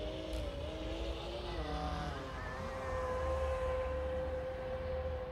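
Radio-controlled model boat motor whining across the water. Its pitch wavers at first, then holds a steady note from about halfway through.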